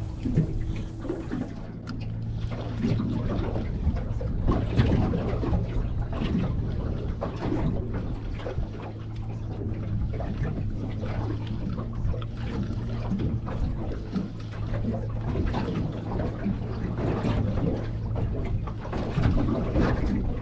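A boat's motor idling with a steady low hum, while water splashes and slaps irregularly against the hull.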